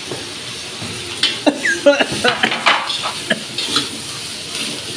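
Sliced onions sizzling in a hot wok while a steel ladle and spatula stir them. The metal clanks and scrapes against the wok, bunched from about one second in to nearly four seconds in.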